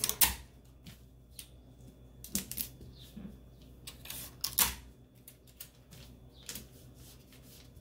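Scattered crinkling and sharp clicks of sublimation paper and heat-resistant tape being handled while a cotton bodysuit is smoothed flat and taped down onto the printed transfer sheet. The loudest clicks come just after the start and at about four and a half seconds.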